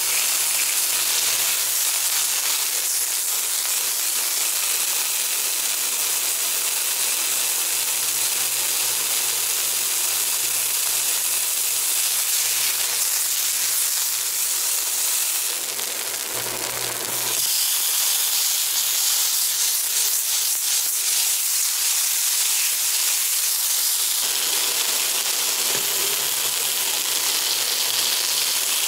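Pork chop searing edge-down in hot oil in a nonstick frying pan: a steady sizzle with fine crackling, dipping briefly about halfway through.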